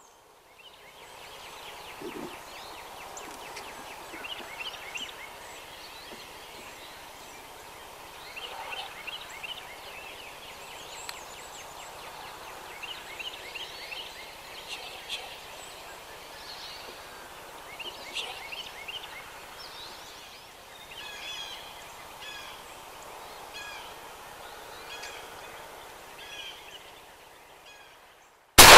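Wild turkey gobbler gobbling repeatedly as it comes in, with other birds calling. Near the end comes one loud 20-gauge shotgun blast, the shot that drops the turkey.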